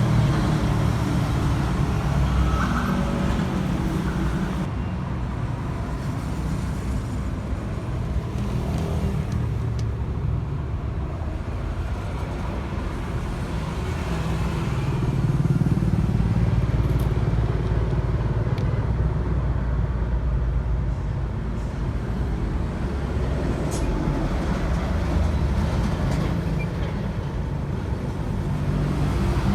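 Steady low rumble of road traffic, swelling as vehicles pass about halfway through.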